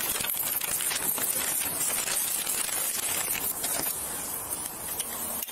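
Body-worn camera microphone outdoors: a steady hiss with many small taps and clinks from the wearer moving.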